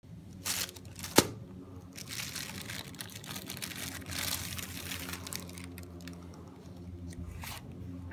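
Clear plastic wrapping crinkling and rustling in irregular bursts as a boxed wallet is handled and unwrapped. A single sharp tap about a second in is the loudest sound.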